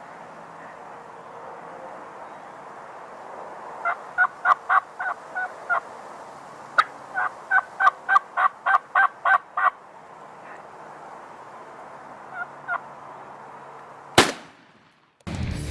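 Turkey calling in two series of short, evenly spaced notes, about four a second, then a single loud shotgun shot near the end, fired at the gobbler.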